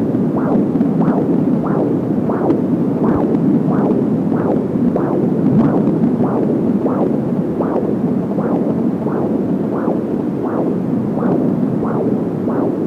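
Fetal heartbeat picked up by a Doppler ultrasound probe: a steady rhythmic whooshing pulse, about one and a half beats a second, over a constant hiss.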